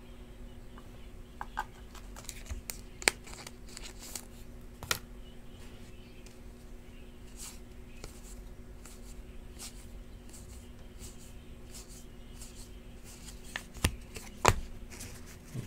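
Cardboard football trading cards being thumbed through one at a time, with soft slides and light clicks of card on card. There are a few sharper snaps, the loudest near the end, over a faint steady hum.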